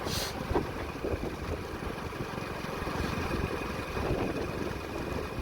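Hero Splendor Plus motorcycle running on the road, its small single-cylinder engine under the noise of the ride.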